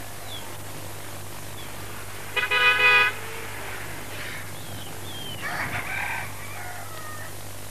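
Bird calls over a steady hum and hiss: a short, loud, steady call about two and a half seconds in, a longer call falling in pitch around the middle, and small chirps in between.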